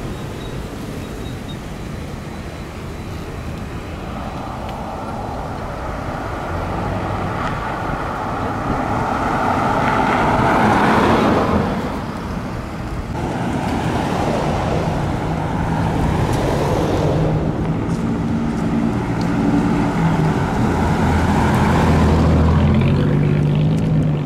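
Road traffic: vehicles passing along a street, the loudest one going by about ten seconds in. A low engine hum runs through the second half.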